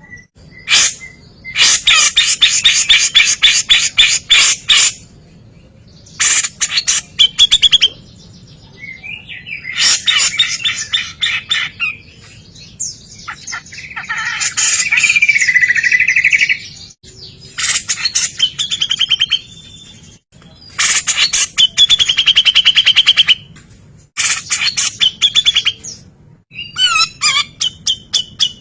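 Javan cucak jenggot (grey-cheeked bulbul) singing in loud, rapid-fire bursts of quick, sharp repeated notes. The bursts come in a run, separated by short pauses, and one warbling phrase sounds about halfway through.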